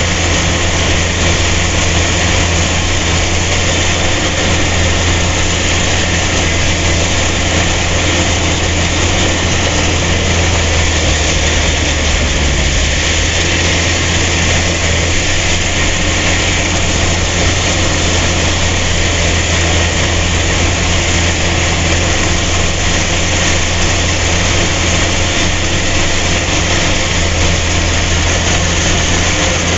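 A rice harvesting machine's engine running steadily at a constant speed, loud and unbroken, with an even hiss of working machinery over its low hum.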